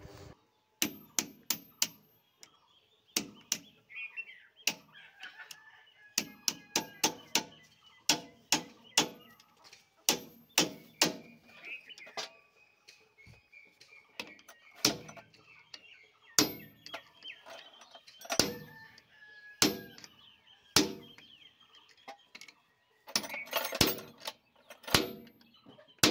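Sharp metal clicks and clinks of a spanner tightening the check nut on a tractor's power-steering cylinder gland. They come irregularly, sometimes in quick runs of three or four.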